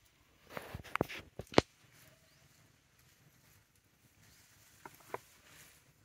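Dry leaf litter crackling as monkeys move about on it: a quick cluster of sharp crackles in the first second and a half, then two more short crackles near the end.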